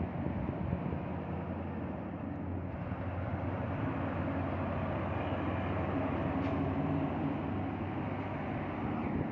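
Heavy diesel trucks, a Hino 22-wheeler container truck among them, driving past on a highway: a steady engine drone with tyre noise, swelling a little in the middle as a line of trucks goes by.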